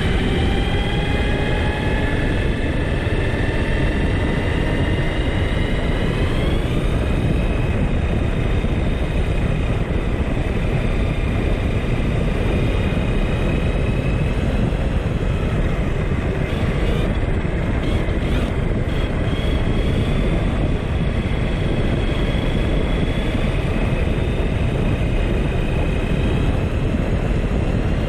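Arrma Kraton RC car's brushless electric motor whining at speed, its pitch climbing as the car accelerates, with a step up about six seconds in. Under it is a heavy steady rumble of wind and tyres on the road.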